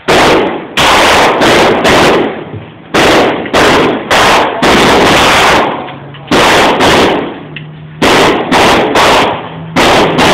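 A 9mm handgun is fired repeatedly, about fifteen shots at uneven half-second to one-second intervals with a couple of longer pauses. Each shot is a very loud, sharp crack with a short echoing tail.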